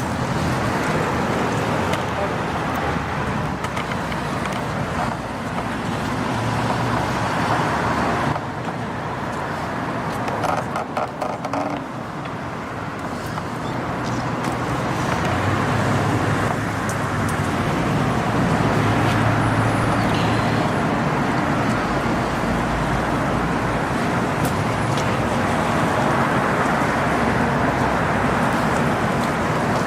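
Steady road traffic noise of passing vehicles, with a stronger low engine hum about halfway through.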